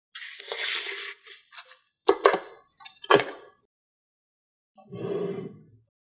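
Small magnetic balls being handled: a rattling shuffle, then sharp clicks as balls snap together about two and three seconds in, and a softer rattle near the end.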